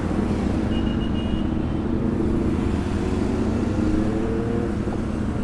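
Motorcycle engine running steadily at cruising speed, heard from on the bike, with wind and road noise.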